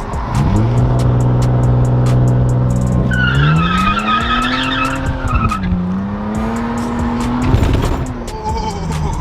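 Straight-piped 2017 Nissan Maxima's 3.5-litre V6, with muffler and resonator deleted, held at steady revs for a launch-control start. It then launches hard, revs climbing with tires squealing, dips briefly, climbs again and backs off near the end.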